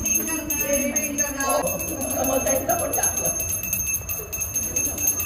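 Handbell rung steadily during a puja, its high ringing tones sustained through repeated strikes, with voices talking underneath.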